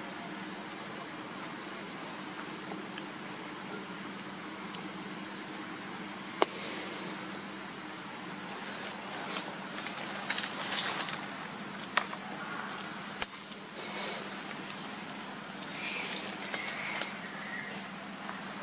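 Steady high-pitched drone of insects in forest, with a few sharp clicks scattered through it.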